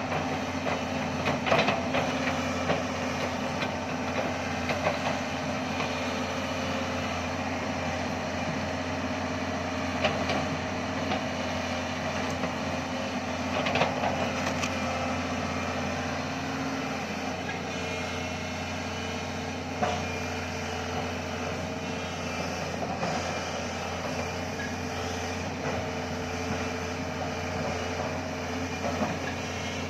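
Doosan crawler excavator's diesel engine running steadily under hydraulic work, with a few sharp knocks scattered through as its grapple handles acacia logs.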